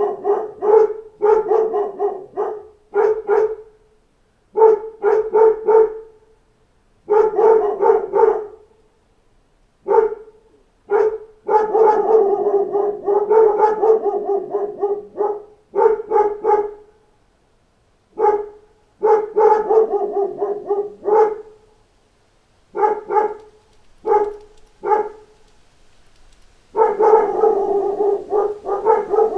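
A pack of dogs barking at knocking on the door, in bursts of several barks each, with pauses of a second or two between bursts.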